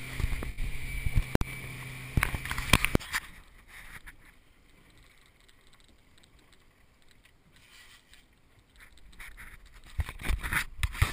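Boat engine running steadily with a few knocks, cutting off suddenly about three seconds in. Then faint water lapping, with a few louder knocks and rushes of noise near the end.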